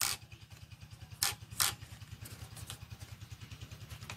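Sharp plastic clicks from handling an RC car's pistol-grip radio transmitter: one at the start, two more about a second in, then fainter ones. A low, rapidly pulsing drone runs underneath.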